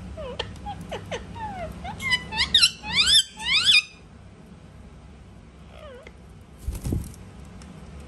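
Indian ringneck parakeets calling: short gliding chirps that build into a quick series of loud rising-and-falling squawks about two to four seconds in, then a faint call near six seconds, followed by a dull thump.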